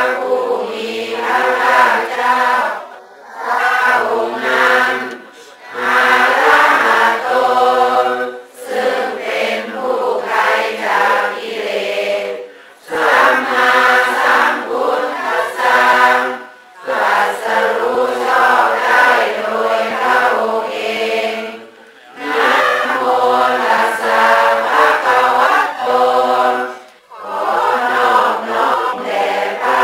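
Several voices chanting together in phrases of two to five seconds, with short pauses between phrases.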